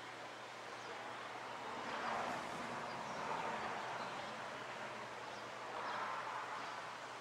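Steady ambient rushing noise that swells a few times, with faint high chirps like distant birds.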